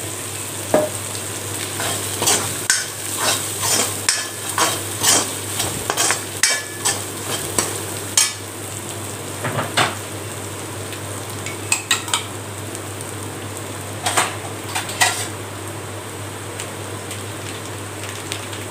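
Metal ladle scraping and knocking against a kadai while onions, curry leaves and spice powder are stir-fried in hot oil, over a steady sizzle. The scraping is dense at first, thins out after about ten seconds, and near the end only the sizzle is left.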